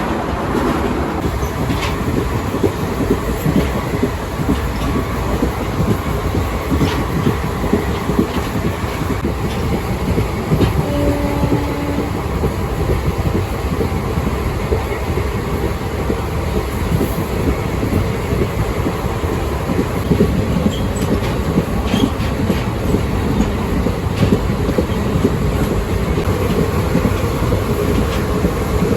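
Express train coaches running at speed, a steady loud rumble with the wheels clicking over rail joints. A short held tone sounds briefly about eleven seconds in.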